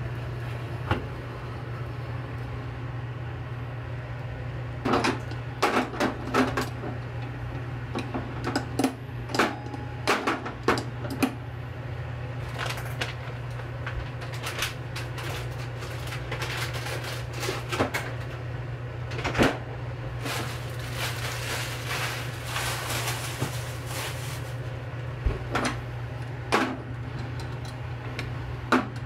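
Kitchen work sounds: irregular clicks and knocks of utensils and dishes being handled, with a longer stretch of scraping about twenty seconds in, over a steady low hum.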